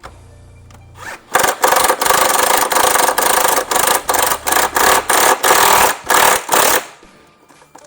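Impact wrench hammering in a string of short bursts for about five seconds, running down and tightening the shock absorber's mounting nut.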